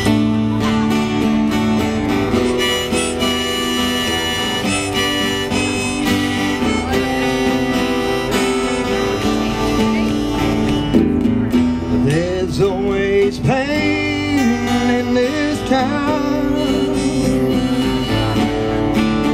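Harmonica playing a melody over two strummed acoustic guitars.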